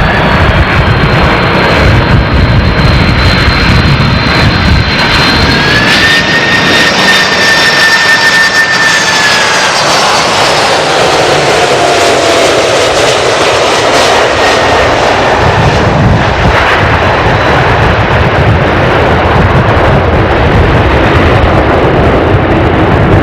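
Jet plane's engines running loud and steady during landing, a dense rumble and hiss under a turbine whine. The whine rises about five seconds in, holds for a few seconds, then falls away as the engines spool down.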